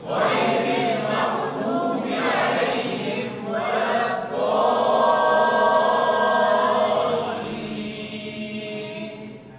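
Quranic recitation chanted in a melodic style, in several phrases with a long held note about halfway through that slowly fades.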